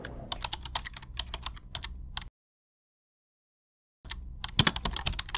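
Computer keyboard typing sound effect: a quick run of key clicks for about two seconds, then complete silence, then another run of clicks starting about four seconds in.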